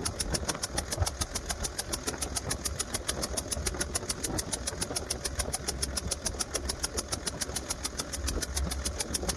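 Komatsu PC300-7 excavator's 6CT six-cylinder diesel engine idling, with a sharp, very regular tick about seven times a second over a steady low rumble. The engine's head gasket is blown.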